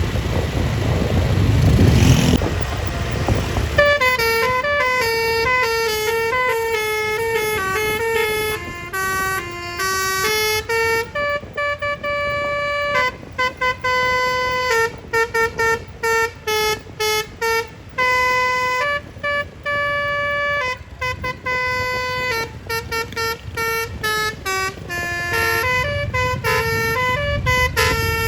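Basuri multi-tone telolet bus horn playing a tune of stepped notes, starting about four seconds in after a loud low rumble of the passing bus. The melody then goes on in short, choppy notes with brief gaps between them.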